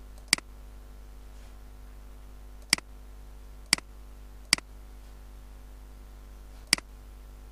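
Five sharp computer mouse clicks, spaced irregularly, each followed closely by a fainter click, over a steady low electrical hum.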